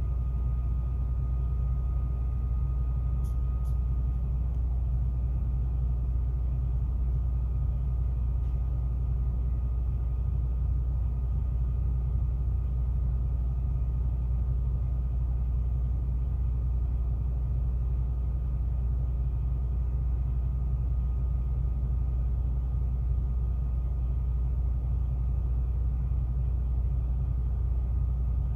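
Steady low rumble of an idling truck engine, unchanging, with a faint thin whine that fades out about four seconds in.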